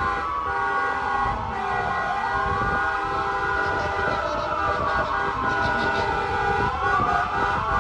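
Fire truck sirens wailing, at least two overlapping, each slowly rising and falling in pitch, over steady held horn tones.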